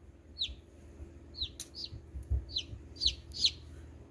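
A hatching chick peeping from inside its pipped eggshell while the shell is picked away by hand: about six short, high peeps, each falling in pitch, with a sharp click of the shell and faint handling knocks between them.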